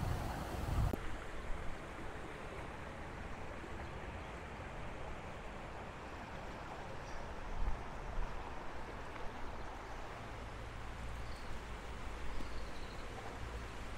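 Steady rushing of a small rocky mountain stream, with wind rumbling on the microphone and a few faint bird chirps in the second half.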